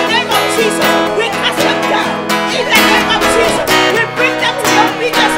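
Instrumental music with plucked guitar notes over sustained chords.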